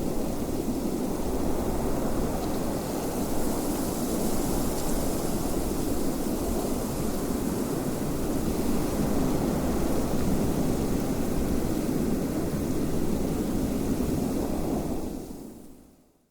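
Wind blowing in a steady low rush with no gusts standing out, fading away to silence near the end.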